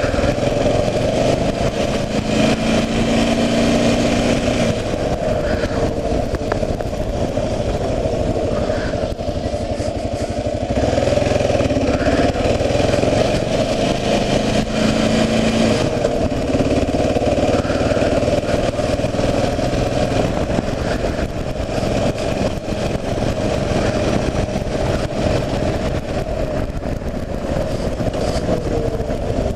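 A 2009 Kawasaki KLR 650's carbureted single-cylinder engine running steadily while the bike is ridden, heard together with road and wind noise.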